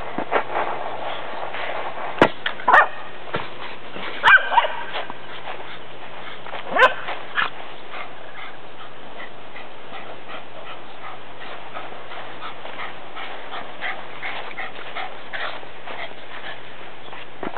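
Small dog barking in short, sharp barks, the loudest about two, three, four and a half, and seven seconds in, followed by fainter, scattered ones.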